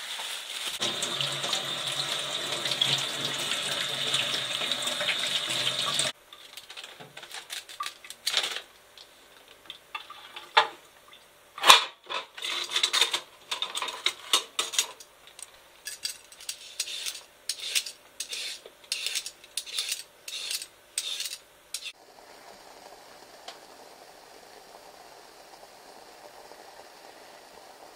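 Kitchen work sounds: water running steadily from a tap for about six seconds and stopping abruptly, then a string of sharp clicks, knocks and clatters of dishes and utensils, then a faint steady hiss for the last several seconds.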